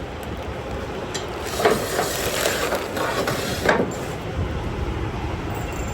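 Metal clanking and rattling: a sharp knock about one and a half seconds in, a rattling scrape, then another knock just before the four-second mark, over a steady low rumble.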